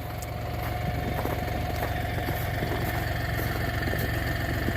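Tractor engine idling steadily, a low hum that swells slightly over the first second and then holds even.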